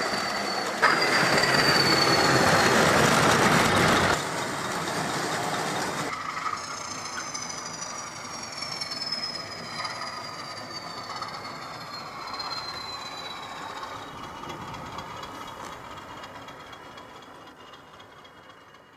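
Model train with Pullman coaches running along the layout's track: a loud rolling rumble close by for about four seconds, then fading steadily as it moves away. Thin high squeals slide slowly down in pitch as it goes.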